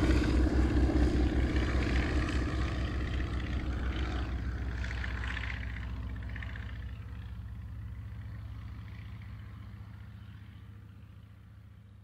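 Twin-propeller aircraft engines running with a low fluttering drone, fading out steadily until almost gone by the end.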